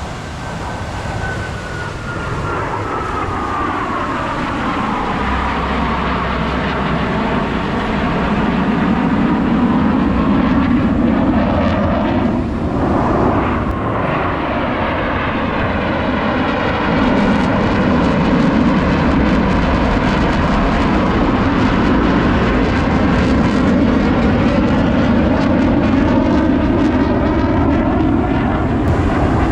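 Blue Angels F/A-18 Super Hornet fighter jets flying past, a loud jet engine noise that builds over the first ten seconds and then holds. A high whine falls in pitch over the first few seconds as a jet goes by.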